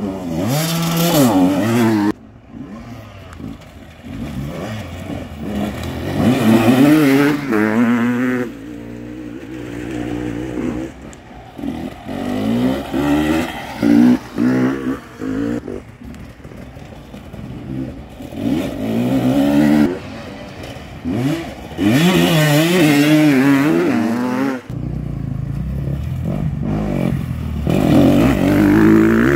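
Dirt-bike engines revving hard, the pitch rising and falling again and again as the throttle is blipped. Several bikes come past one after another, each getting louder and then fading.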